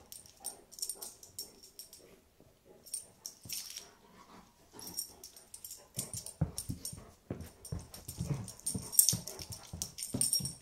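Great Dane playing with a toy, breathing in short irregular puffs that grow louder and more frequent in the second half, with many light high clicks and jingles throughout.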